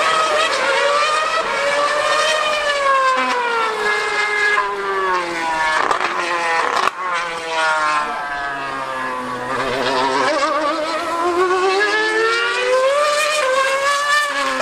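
2013 Mercedes Formula One car's 2.4-litre V8 screaming at high revs on track. The engine pitch sweeps down over several seconds, then climbs again as it accelerates, with quick wobbles in pitch near the end.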